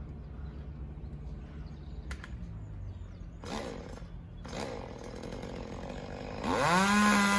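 Chainsaw idling with a low steady hum, briefly revved once midway, then revved hard near the end as a tree surgeon works up in a tree.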